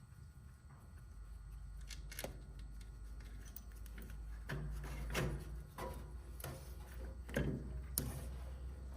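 Scattered light clicks and knocks of hand work on parts, a few seconds apart, over a low steady rumble.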